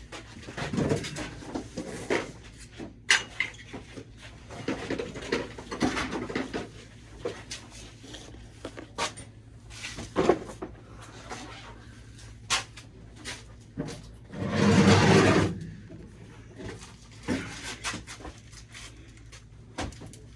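Knocks, bumps and clatter of household items being handled and moved, with one louder rushing, scraping noise lasting about a second near the end.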